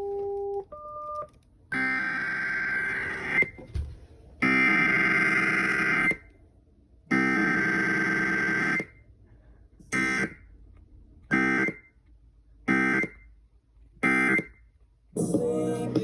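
Emergency Alert System SAME digital data bursts: harsh, buzzy electronic screeches, three longer ones about a second and a half each, then four short ones evenly spaced. Two brief electronic tones come before them, and music starts near the end.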